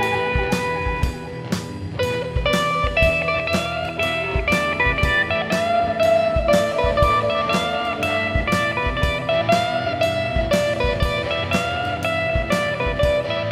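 Blues music: guitar melody over a steady drum beat.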